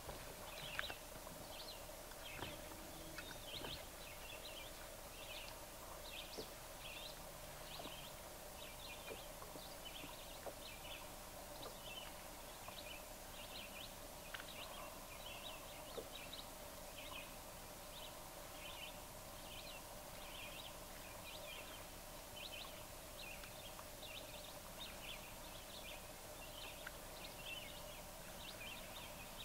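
Faint outdoor ambience: a small animal's short, high chirp repeats steadily about every two-thirds of a second over a faint, steady hum.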